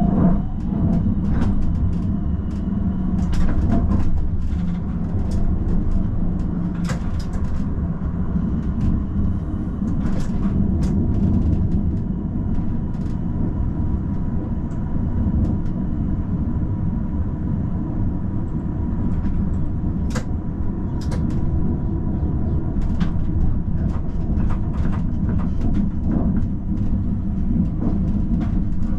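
Tram's steady low rumble, with scattered clicks and knocks and a faint steady whine from about eight seconds in.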